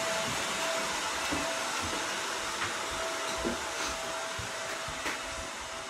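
A motor-driven fan or blower running: a steady rush of air with a faint, steady hum in it, easing off slightly over the seconds.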